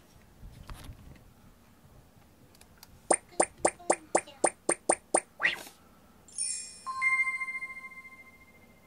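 Animated-intro sound effects playing from a computer: a run of about nine sharp ticks, about four a second, then a rising swish, then a bell-like chime that rings on and fades away.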